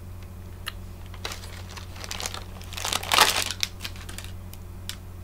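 Plastic snack packaging crinkling and clicking as it is handled, with scattered sharp clicks and a denser rustle in the middle, loudest about three seconds in.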